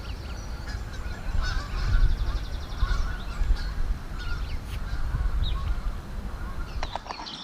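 Wild birds calling across the lake, with wind buffeting the microphone as a steady low rumble.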